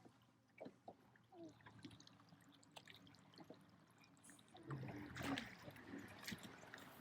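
Faint water trickling and lapping, with scattered light clicks and knocks.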